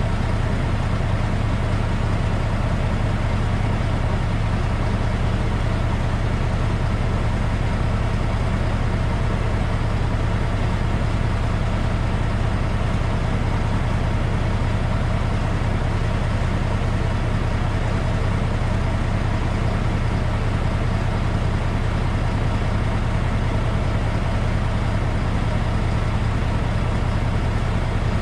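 Log truck driving steadily, its engine a constant low drone under even road noise, with no change in speed or gear.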